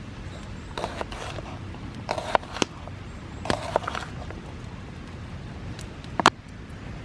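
A few sharp clicks, the loudest about six seconds in, and short rustling or scraping noises over a steady low background rumble.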